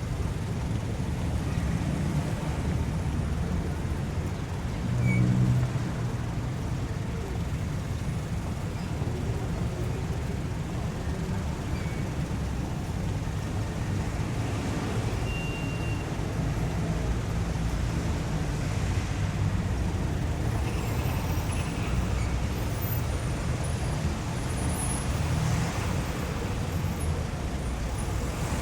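City street traffic: a steady low rumble of passing motor vehicles. One vehicle swells louder for a moment about five seconds in.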